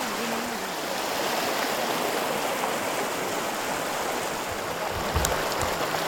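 Steady rush of thermal spring water running over travertine terraces, with a voice trailing off in the first second and a few low thumps near the end.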